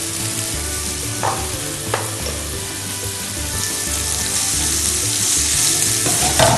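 Onions frying in hot oil in a pan, a steady sizzle, stirred with a spatula; the sizzle grows a little stronger in the second half.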